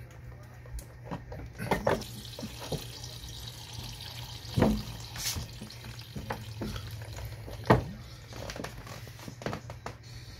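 Plastic gravity pet waterer being set in place and filling its dish: sharp knocks of the bottle against the base, with water gurgling as air bubbles up into the bottle. The loudest knocks come about halfway through and again about three quarters of the way through.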